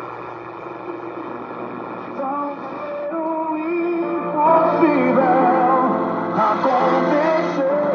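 Music with singing from a shortwave broadcast on the 49-metre band, coming through the speaker of a Delta DBR 5500 multiband radio receiver. It grows louder over the first four or five seconds.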